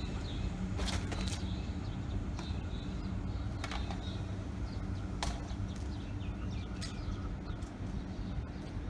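Steady low rumble and hum of a Melbourne Metro electric suburban train running along the tracks, with about five sharp clicks scattered through it. Faint bird chirps sound over the top.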